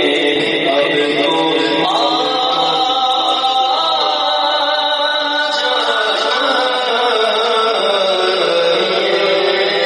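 A man singing a naat, an Urdu devotional song, solo into a microphone, in long held notes that waver and bend in pitch.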